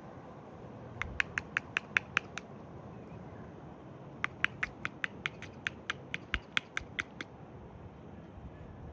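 Rapid, evenly spaced mechanical clicking, about five clicks a second, in two runs: a short one about a second in and a longer one from about four to seven seconds in. Wind rumbles underneath.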